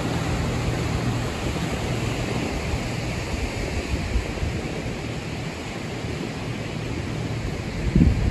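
Lake Ontario surf breaking steadily on a sand beach, with wind buffeting the microphone. Stronger gusts hit the microphone near the end.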